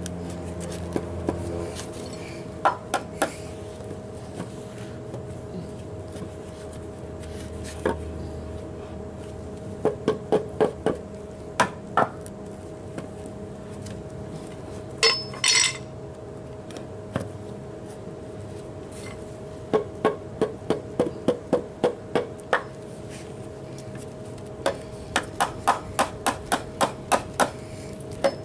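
Claw hammer striking a two-by-four block to drive it down into a notch cut in a pressure-treated board, in several runs of quick blows, the last about four a second. Halfway through comes a short scraping noise.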